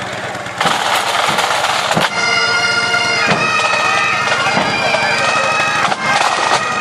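Pipe band bagpipes come in about two seconds in and play on, over the band's drum strikes.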